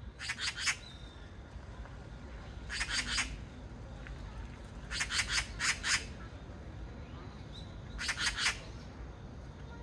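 Oriental magpie (Pica serica) giving its rattling chatter call: four bursts of three to five rapid rasping notes, about every two and a half to three seconds.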